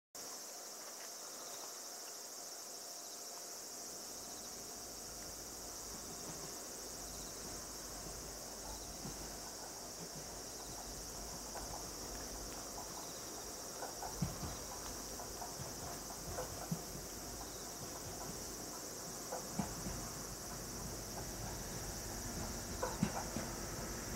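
Steady high-pitched insect chorus, with the low rumble of an approaching diesel railcar slowly building from about six seconds in. Scattered sharp clicks come in the second half, more often near the end.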